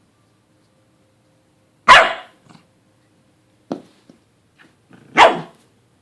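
A dog barking: two loud barks about three seconds apart, with a shorter, quieter bark between them.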